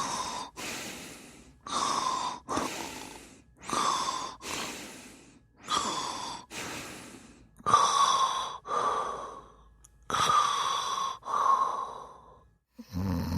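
A person snoring in a steady rhythm: about six breaths, each a pair of raspy in-and-out sounds roughly two seconds apart, then a deeper, pitched snore near the end.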